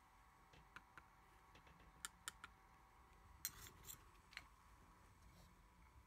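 Faint, sharp metallic clicks of a precision screwdriver and tiny screws against a tablet's metal frame: a few single clicks about two seconds in, a louder quick clatter about three and a half seconds in, then one more click.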